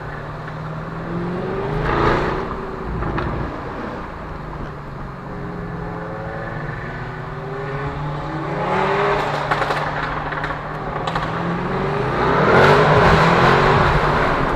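Cars' engines revving as they pull away and drive past one after another, with the pitch rising and falling on each pass; the loudest car goes by near the end.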